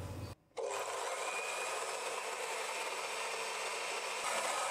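Electric blender running steadily, grinding coriander, mint and green chillies into a thick green chutney paste; the motor sound starts just after a brief silent gap about half a second in.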